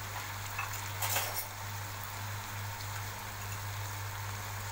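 Raw minced meat and softened onions sizzling in ghee in a stainless steel pot: a steady crackling hiss, with a louder spatter about a second in. The meat has only just gone in, so this is the start of browning.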